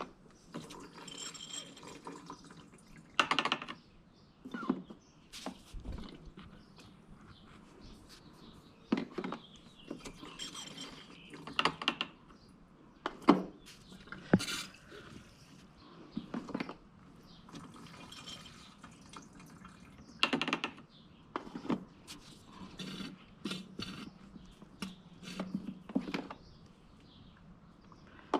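Old gasoline being drawn off a lawn mower's fuel tank in small amounts, with faint trickling and dripping among scattered clicks and knocks from handling the siphon and container.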